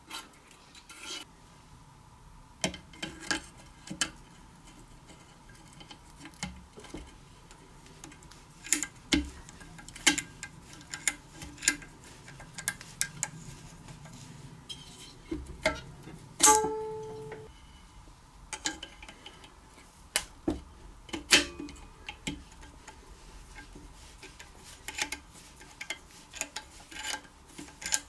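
Irregular metal clicks and clinks of hand tools and engine valve parts as a valve, its spring and retainer are fitted into a small Briggs & Stratton engine, with one short ringing note a little past halfway.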